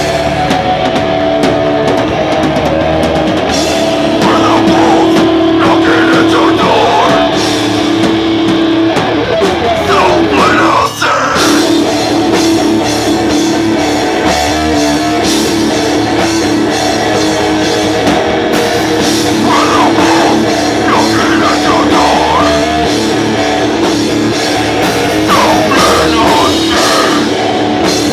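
Live heavy rock band playing loudly: guitars, electric bass and a full drum kit, with a vocalist's voice coming in at times. There is a momentary break about eleven seconds in.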